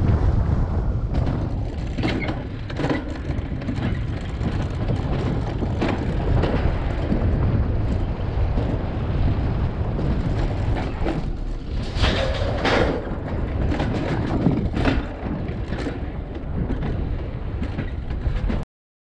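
Pipe Mountain Coaster's alpine coaster sled running along its rails: a steady rumble with scattered clacks and rattles. It cuts off suddenly near the end.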